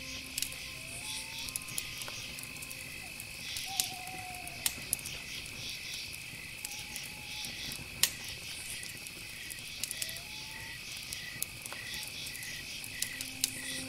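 Steady, high insect-like chirping that pulses in a quick rhythm, with a few short whistled notes and scattered sharp clicks.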